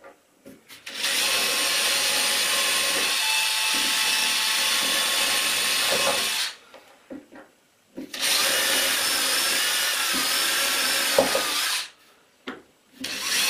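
DeWalt cordless drill running at speed, boring button holes through a wooden headboard panel. It makes two long steady runs of about five and four seconds, with a brief pause and a few clicks between, and starts a third run just before the end.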